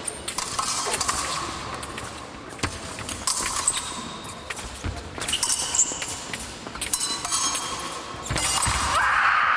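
Épée blades clicking and scraping against each other, with quick footwork thumping on the piste. Near the end a louder steady noise sets in.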